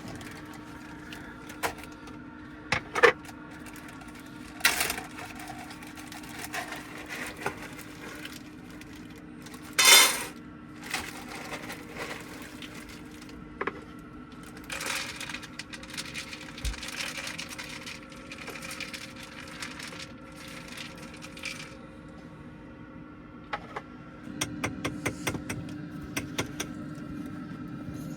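Scattered small clicks, knocks and rattles of objects being handled in a small room, over a steady low hum. A louder rustling burst comes about ten seconds in, and a quick run of clicks near the end.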